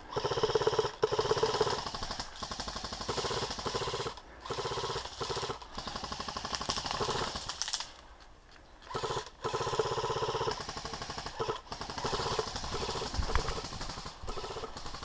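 Airsoft rifle firing long full-auto bursts: a rapid, even rattle of shots that comes in several runs separated by short pauses.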